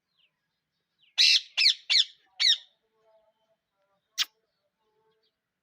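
Parrot screeching: four harsh squawks in quick succession, then a single shorter squawk about two seconds later.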